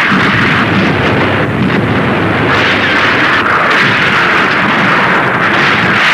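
Artillery barrage and explosions: a dense, unbroken rumble with no single blast standing out.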